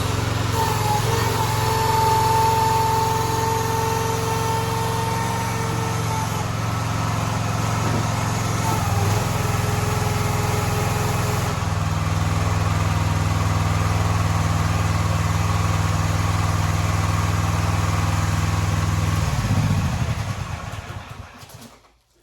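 Small gasoline engine of a towable mini excavator running, with a steady whine that comes and goes during the first half as the machine is worked. Near the end the engine shuts off and winds down to silence.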